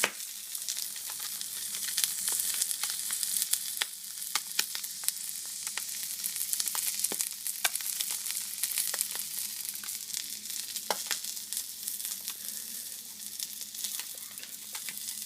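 Scallop roe frying in a hot pan: a steady sizzle with frequent sharp pops and crackles throughout.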